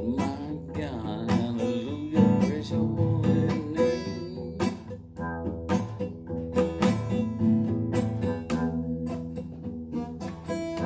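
Acoustic guitar strummed in an instrumental passage, with a final chord left ringing near the end.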